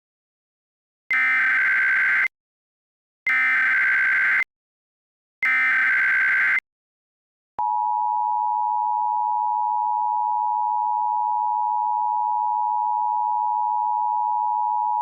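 Emergency Alert System header: three one-second screeching bursts of SAME data tones, then the steady two-tone EAS attention signal lasting about eight seconds. Together they open an emergency alert, here a tornado warning.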